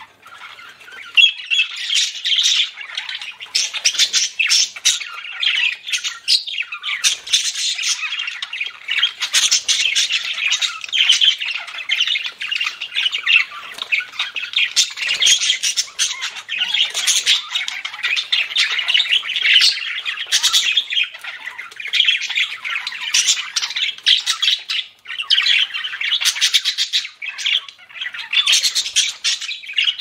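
A flock of budgerigars chattering and warbling without pause, thick with short chirps, clicks and sharp squawks.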